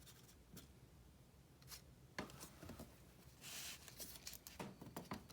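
Faint handling of baseball trading cards: scattered soft clicks and a brief rustle of card stock sliding, about three and a half seconds in.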